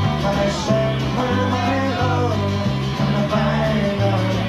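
Live folk-rock band playing: acoustic guitar strumming over a stepping bass guitar line, with a wavering melody line above.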